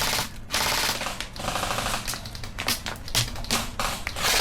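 Airsoft guns firing several short full-auto bursts, each a rapid run of clicking shots lasting well under a second.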